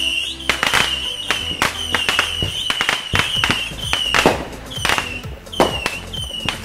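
Sharp cracks and pops of fireworks mixed over background music, with a short high chirp repeating about every half second.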